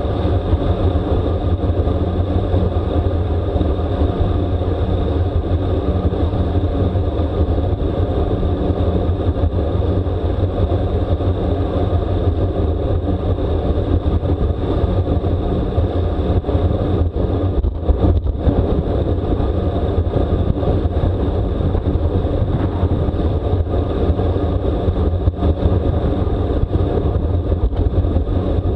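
Steady, loud wind rush on a bike-mounted camera's microphone while riding a road bike at race speed, with tyre and road noise underneath, briefly easing about two-thirds of the way through.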